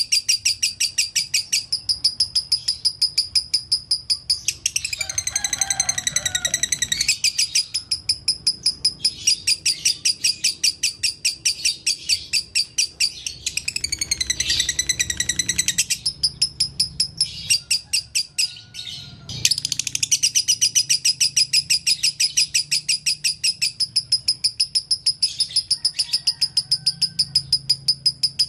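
Fischer's lovebird chattering nonstop: a long, fast run of high, evenly repeated notes, about five a second, broken twice by denser warbling passages and by a short pause about two-thirds of the way through. This is the long unbroken chatter that keepers call 'konslet'.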